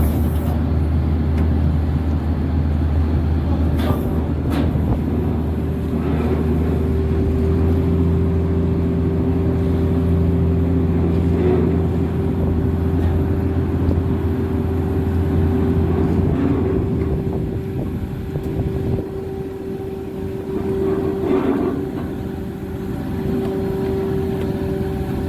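A cargo ship's engines running with a steady low hum and a steady higher tone above it. The deepest part of the hum drops away about seventeen seconds in, as the ship gets ready to pull away from the wharf.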